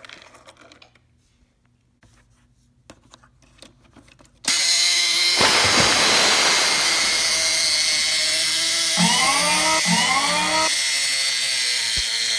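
Toy car wash playset's small electric motor running steadily, spinning its foam rollers. It switches on suddenly about four and a half seconds in after a few light plastic clicks, with two short rising tones over it near the end.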